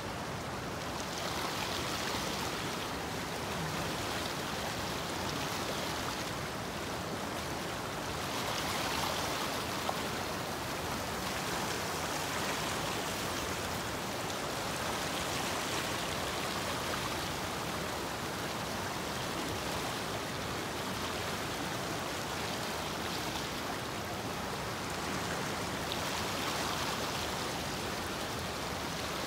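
Fast-flowing stream rushing over rocks: a steady water noise that swells and eases gently every few seconds.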